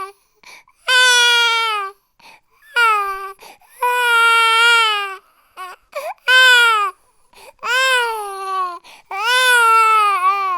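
Infant crying in a run of about six loud wails, each around a second long and falling in pitch at its end, with short gaps between them.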